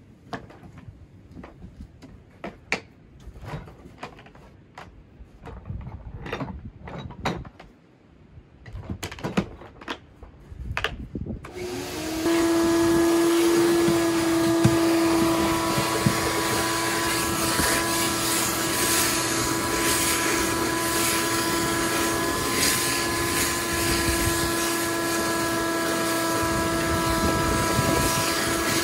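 Scattered clicks and knocks of handling, then about twelve seconds in a wet vacuum cleaner switches on and runs steadily with a whine, drawing water out of a drained hot tub through its hose and a PVC pipe wand.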